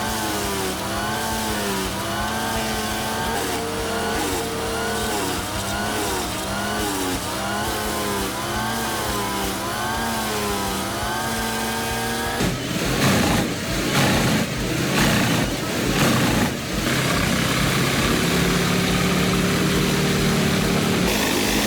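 Wood chipper's engine running, its pitch rising and falling about once a second under changing load. About twelve seconds in comes several seconds of loud, irregular crunching as wood is chipped, then the engine settles into a steadier drone.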